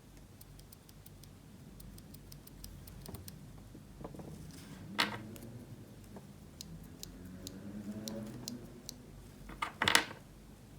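Small plastic clicks and snaps from handling Kailh Box Silent mechanical keyboard switches, with faint light ticks throughout and two louder sharp snaps, one about halfway through and one near the end.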